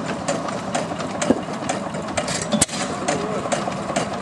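Antique single-cylinder stationary gas engine with twin flywheels running, firing in sharp pops at uneven intervals, belted to a buzz saw that is not cutting.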